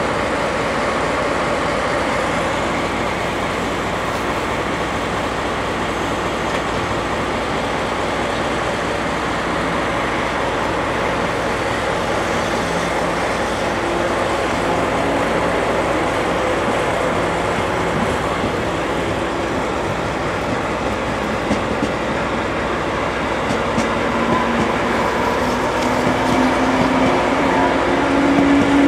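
Eight-car JR Kyushu 415 series electric multiple unit pulling away from a station platform: a steady running noise of motors and wheels on the rails. Near the end a motor tone rises in pitch and the sound grows louder as the train gathers speed.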